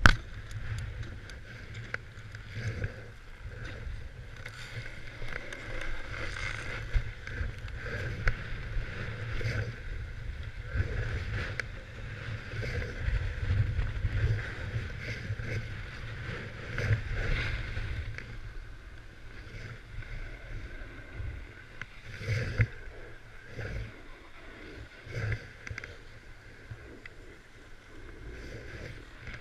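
Wind buffeting a body-worn camera's microphone as its wearer slides down a groomed slope, with the hiss and scrape of edges over packed, icy snow that swells and fades through the turns.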